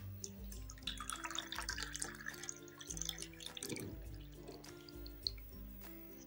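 Beetroot juice poured into a glass, splashing for about two seconds, over background music.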